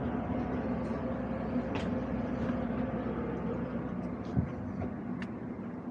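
Steady air-conditioning hum of a parked airliner's cabin, with a few faint light clicks and one short knock about four seconds in.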